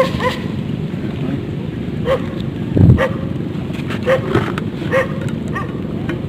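A dog barking repeatedly in short barks, about one every half second to second, over a steady low rumble of background noise. A louder low thump comes about three seconds in.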